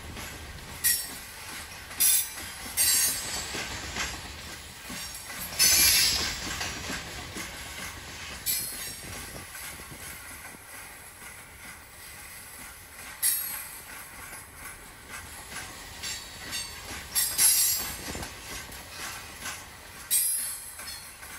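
Loaded coal hopper cars rolling past with a steady wheel-on-rail rumble, broken by repeated short high-pitched wheel squeals every few seconds.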